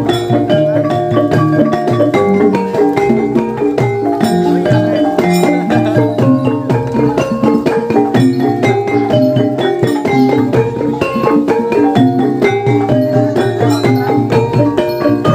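Gamelan music in the Banyumasan jaranan style: mallet-struck keyed instruments playing a fast, dense run of repeating notes over steady drum strokes, the accompaniment for a kuda lumping horse dance.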